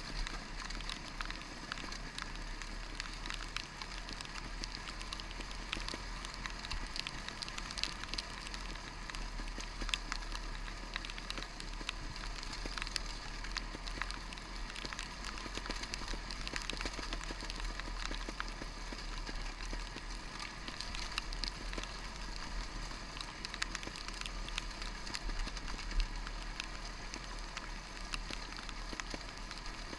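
Rain and spray crackling on the camera of a trials motorcycle riding down a wet, stony track, as a dense, irregular patter over a steady muffled hiss. The motorcycle runs low underneath, and there is one sharper knock about 26 seconds in.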